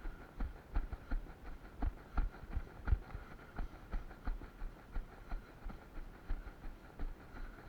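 A runner's footfalls on a trail at a steady jogging pace, about three thuds every second, picked up by a body-worn camera.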